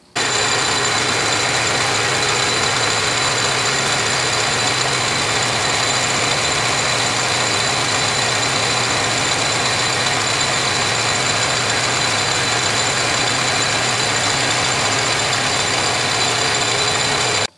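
South Bend 10-inch heavy lathe running under power while the tool takes a turning pass on a taper. It is a steady machine hum with a constant high whine, unchanging throughout.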